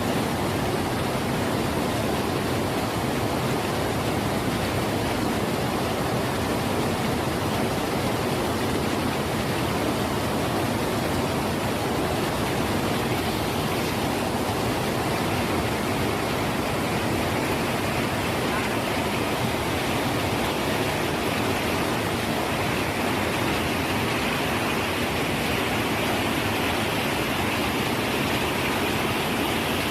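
Fast-flowing floodwater rushing: a steady, unbroken sound of churning water.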